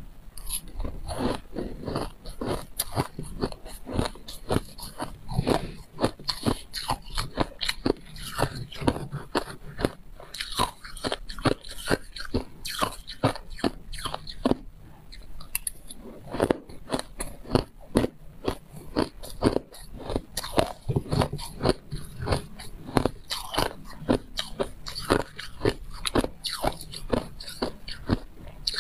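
Close-up crunching and chewing of mouthfuls of refrozen white crushed ice, a fast, uneven run of sharp crunches.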